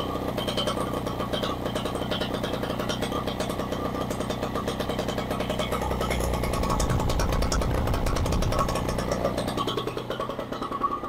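Rotax 185 engine running with a rapid, even firing pulse. About six seconds in it runs harder and louder, then eases back near the end. It is picked up through a voice-oriented noise-deadening microphone, which makes the engine sound strange.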